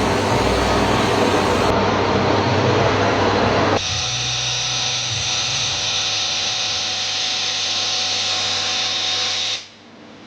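Friction stir welding machine working aluminium: a loud, rough grinding noise, changing about four seconds in to a steadier high-pitched whine, which cuts off suddenly shortly before the end.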